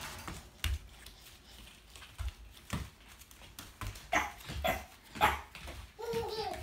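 Boston terrier puppy giving a few short, high yips and barks in the second half, the last one falling in pitch. A few light knocks come earlier.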